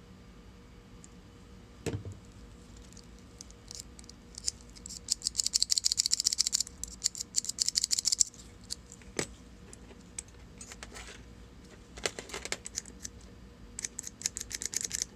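Rapid light metallic clicking and rattling from a Mitutoyo No. 1507 dial indicator being worked and handled after its sticky movement has been oiled. The clicking comes in runs, the densest from about 4 to 8 seconds and another near the end, with a single knock about 2 seconds in.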